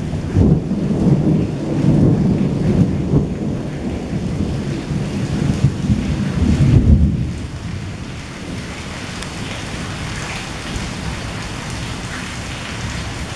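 Thunder rumbling long and low over steady rain, dying away about seven seconds in and leaving only the rain falling.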